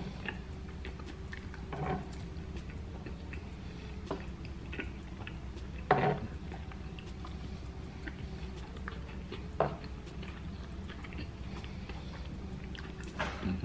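A person chewing and eating with a fork, with a few sharp clicks of the fork against the plate, the loudest about six seconds in, over a steady low hum.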